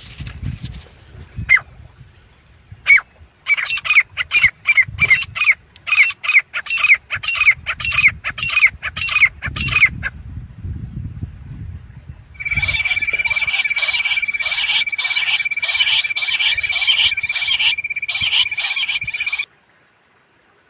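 Teetar (francolin) calling: a run of sharp, down-slurred squawking calls at about two a second, then after a short pause a faster, denser run of calls over a steady high tone that cuts off abruptly near the end.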